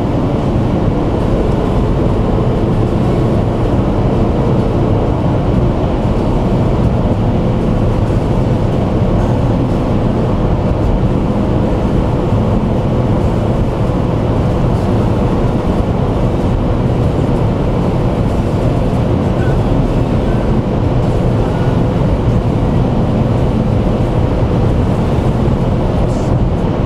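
Steady road and engine noise heard inside a car's cabin at highway speed, with a faint steady hum that comes in a few seconds in and holds until near the end.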